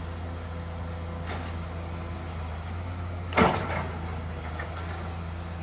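Komatsu PC200-7 excavator's six-cylinder diesel engine running steadily under work while it smooths dirt, with one sharp clunk from the bucket and boom about three and a half seconds in.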